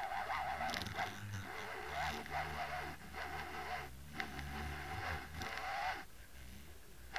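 Water rushing and rumbling over an underwater camera housing towed on a fishing line during the retrieve. It dips briefly about four seconds in and drops away for about a second near the end.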